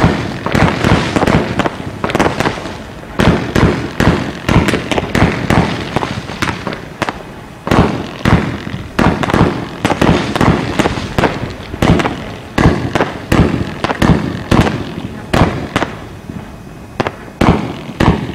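Heron 4-5-6 consumer firework cake, a 178-shot battery of up to 30 mm calibre, firing. Its shots and shell bursts follow one another in a rapid, continuous string of sharp bangs and cracks, several a second.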